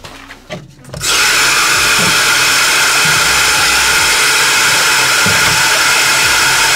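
A few light knocks, then about a second in a loud, steady rush of water starts: a sink faucet running into a plastic jar.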